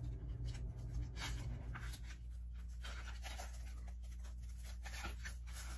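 Hands handling plastic Easter eggs and a foam egg holder: light scratching, rustling and small taps, busier in the first couple of seconds, over a steady low hum.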